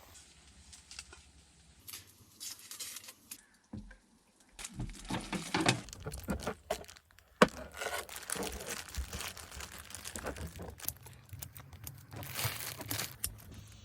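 Crinkling, rustling and tearing of packaging being handled, with scattered sharp clicks and knocks. It starts sparse and gets busier about five seconds in.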